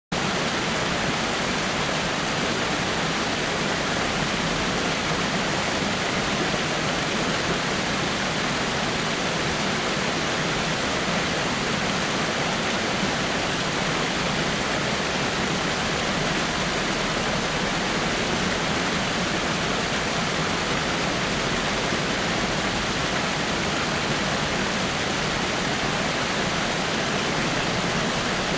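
Waterfall: water falling over rocks in a steady, unbroken rush.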